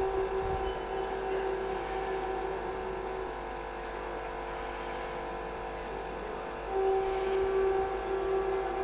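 WAP-4 electric locomotive approaching at the head of a passenger train, a steady hum of several held tones that grows louder about seven seconds in.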